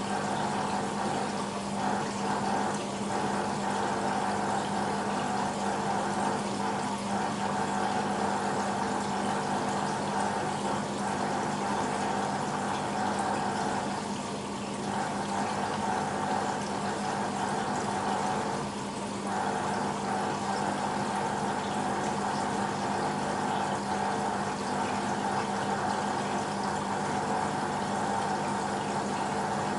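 BEKO WMB 51441 front-loading washing machine mid-cycle, with water rushing through it and a steady machine hum. It dips briefly twice.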